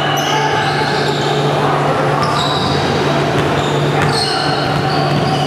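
Basketball being dribbled on a hardwood gym floor, with short high sneaker squeaks, echoing in a large hall over a steady low hum.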